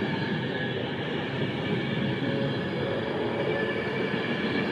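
Avanti West Coast passenger train running past along the platform: a steady rolling rumble of wheels on rail, with a few thin, steady whining tones held above it.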